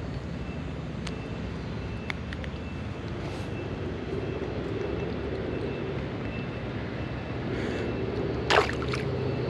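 A small sunfish dropped back into the creek, hitting the water with one sharp splash about eight and a half seconds in, over a steady low background rumble. A few faint ticks come earlier while the fish is handled.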